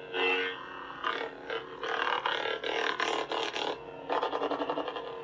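Proffieboard lightsaber sound board playing the K-Sith Rogue Vader smooth-swing font through the hilt's speaker: a steady hum with swing sounds that swell and fade as the hilt is moved slightly, the swing made in real time from the motion, so even small movements register. A quick fluttering run of swing sounds comes near the end.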